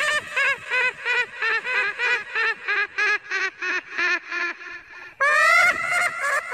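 Creature-voice sound effect: a rapid run of short pitched cries, about four a second, sinking slowly in pitch and fading, then a louder drawn-out cry about five seconds in.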